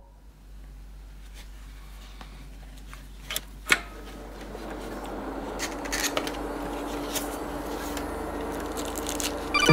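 A cardboard box being handled and opened by hand: the cardboard rubs and scrapes, with two sharp taps about three and a half seconds in, and the handling grows a little louder in the second half.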